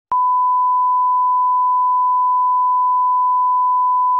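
A loud, steady electronic beep tone at a single pitch of about 1 kHz, held unbroken after starting a fraction of a second in.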